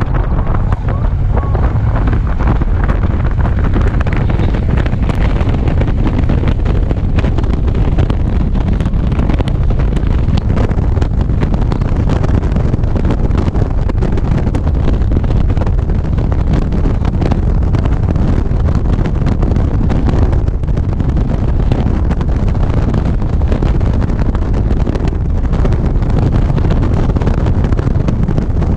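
Wind rushing over the microphone of a motorcycle riding at cruising speed, with the bike's engine and road noise under it. The noise is loud and steady.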